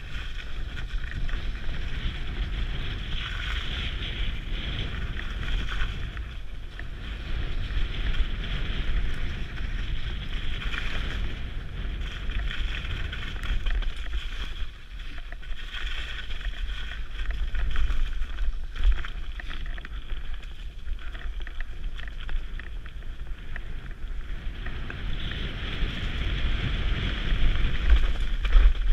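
Wind buffeting the helmet camera's microphone over the rumble of a mountain bike riding down a muddy, snow-covered dirt trail, with a few short knocks.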